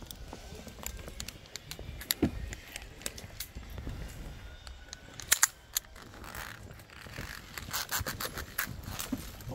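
Metal zip-line harness hardware (carabiners and clips) clinking and scraping, with many sharp clicks; the loudest come a little past halfway, and more follow near the end.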